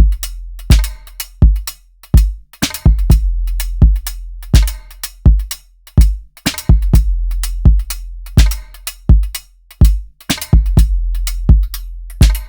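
A programmed drum-machine beat from Maschine's drum synths looping: punchy hits in a steady repeating pattern, with kicks that ring out in long, deep bass tails.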